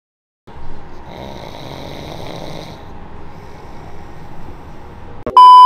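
A person snoring. Near the end a sudden loud electronic beep starts.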